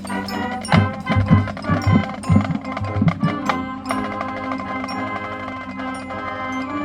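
High school marching band playing: a run of heavy drum hits over brass and wind chords for the first few seconds, then the band holds sustained chords.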